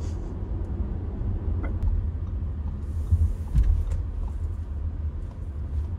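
Steady low cabin rumble of a 2022 Audi Q5 with a 2.0-litre turbo four under way, road and engine noise heard from inside the car. A short hiss comes about three seconds in, followed by a low thump, with a few faint clicks scattered through.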